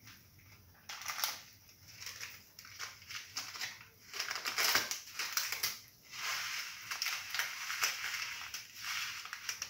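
Mustard seeds in hot oil in a steel pan, sizzling and crackling as they start to pop. The sound starts about a second in and grows denser and louder from about four seconds.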